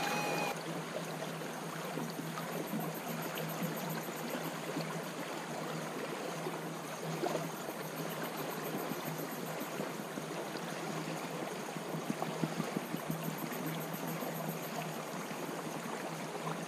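Creek water running steadily, with water sloshing as a plastic gold pan of gravel is swirled and dipped in the stream during panning.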